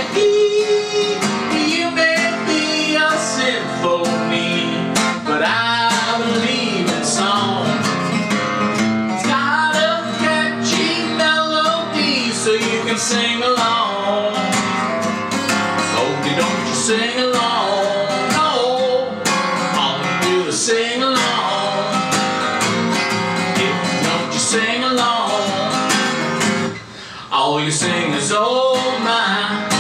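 A man singing a song while accompanying himself on an acoustic guitar.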